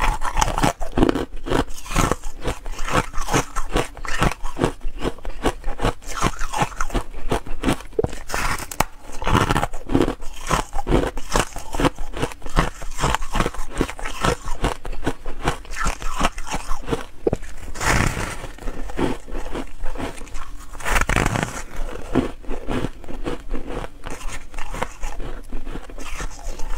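Pink foam ice bitten and chewed close to a clip-on microphone: a continuous run of rapid, crisp crunches. Two louder crunches come a few seconds apart, about two-thirds of the way through.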